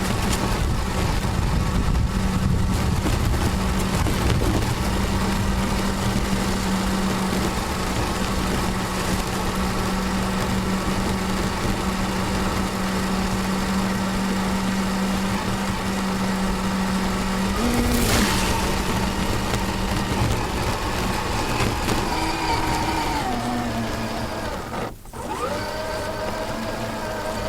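Axial SCX10 II RC crawler's brushless electric motor and gear drive running under heavy hiss, a steady whine whose pitch shifts a few times as the truck changes speed. A brief dropout about three-quarters of the way through comes from the glitching camera audio.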